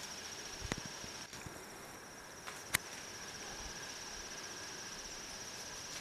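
Steady high-pitched insect chorus with a fast pulsing trill, typical of crickets. Two sharp clicks cut through it, one under a second in and a louder one near three seconds in.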